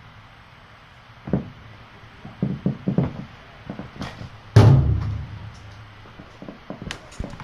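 Irregular knocks and thumps, a handful of them, the loudest a deeper thump about four and a half seconds in.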